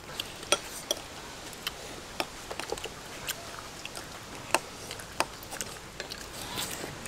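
Irregular light clicks and clinks of spoons and dishes as people eat at a table.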